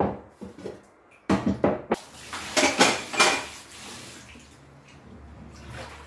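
Dishes, pots and cutlery clattering as they are washed and handled at a kitchen sink, with several sharp knocks in the first two seconds. After that, water runs steadily, as from a tap.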